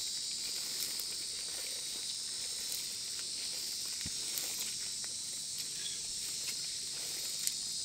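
Steady, high-pitched chorus of insects buzzing, with faint rustling footsteps through tall grass.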